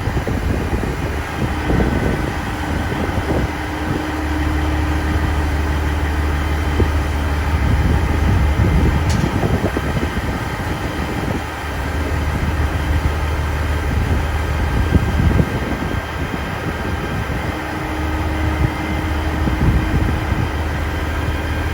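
Truck engine idling with a steady low rumble that swells and eases a little.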